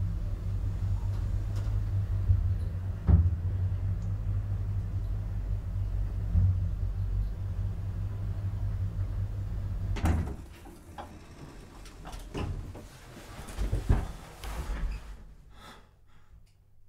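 Lift car running with a steady low hum. About ten seconds in the hum stops and the sliding lift doors open, followed by a few thumps and shuffling sounds.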